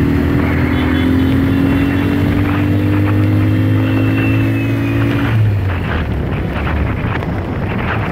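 Motor vehicle engine running and gently rising in pitch as it gathers speed, with wind on the microphone. About five seconds in the engine tone drops away, leaving rushing road and wind noise.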